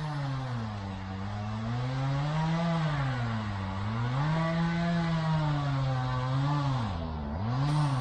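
A two-stroke chainsaw engine is running, its pitch rising and falling over and over as the throttle and cutting load change. The swings come quicker near the end.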